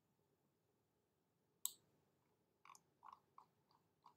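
Computer mouse: one sharp click about a second and a half in, then a run of softer clicks at about three a second as the page is scrolled.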